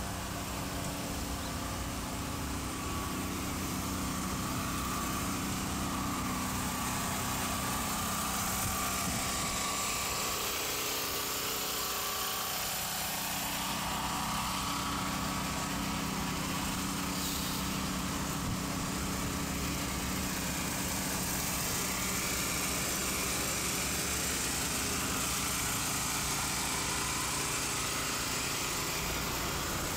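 Steady engine hum, unchanging throughout, over a wide hiss of outdoor traffic and wind.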